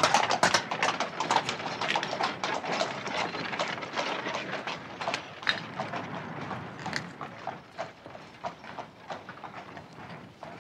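Horse-drawn cab moving off over cobblestones: hooves clip-clopping at a brisk, even pace, fading steadily as it goes.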